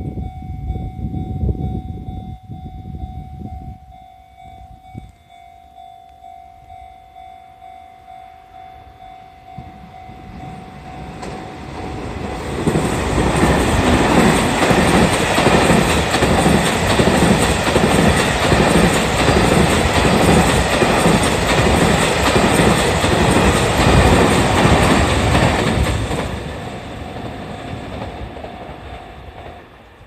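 Japanese level-crossing warning bell ringing in a steady, repeating rhythm, with low rumbling in the first few seconds. A JR Freight M250 series Super Rail Cargo electric freight train then passes at speed for about fourteen seconds, its wheels clattering rhythmically over the rail joints. The bell stops near the end.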